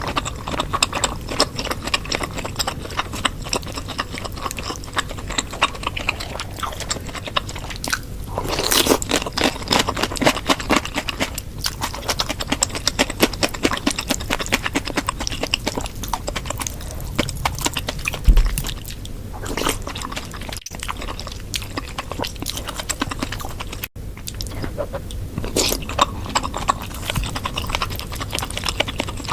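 Close-miked ASMR eating sounds: chewing and wet mouth smacking on bakso meatball soup, a dense run of small clicks with short louder stretches. A brief low thump sounds about eighteen seconds in.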